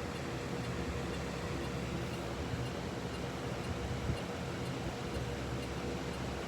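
Steady rumbling background noise with a faint constant hum and no distinct sounds.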